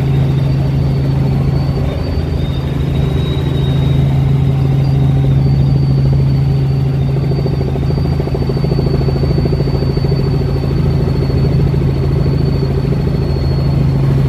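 Light helicopter in steady cruise heard from inside the cabin: a loud, even low drone of engine and rotor, with a thin steady high whine above it.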